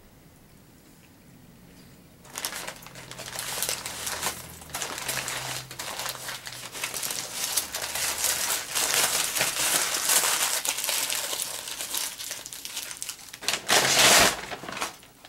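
Paper crinkling and rustling as a sandwich wrapper and a brown paper take-out bag are handled, in many short crackly bursts starting about two seconds in. The loudest burst comes near the end, when a hand rummages in the paper bag.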